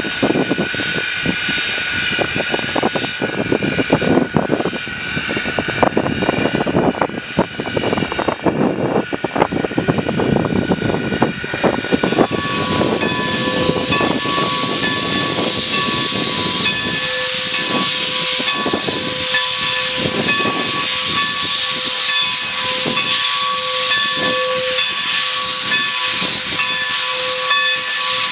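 Steam locomotive No. 90, a 2-10-0, hissing steam as it moves off with its cylinder cocks open. The hiss is uneven at first; about halfway through it becomes a steady loud hiss with a held ring of several tones over it.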